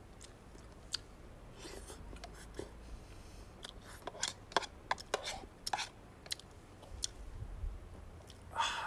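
Metal spoon clicking and scraping against a bowl of rice, with chewing between the scoops, in scattered small clicks that bunch together about halfway through.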